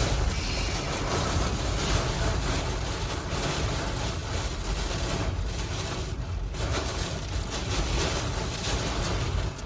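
Hurricane eyewall winds blowing in strong, continuous gusts, with heavy wind buffeting on the microphone. The gusts ease slightly near the end.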